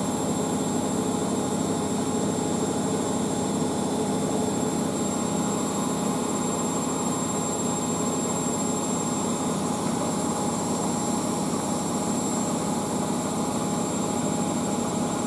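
Beko WM6143S washing machine running near the end of its wash programme: a steady, even mechanical running noise with a faint steady whine.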